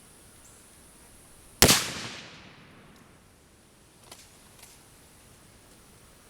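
A single shot from a 1937 Tula Mosin-Nagant rifle in 7.62x54R, firing a steel-case 185-grain full metal jacket round, about one and a half seconds in. Its echo dies away over about a second, and two light clicks follow a couple of seconds later.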